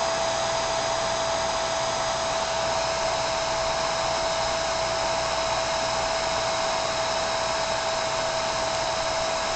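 Electric heat gun running steadily, blowing hot air to shrink heat-shrink tubing over soldered connector wires. A steady whine sits over the rush of air.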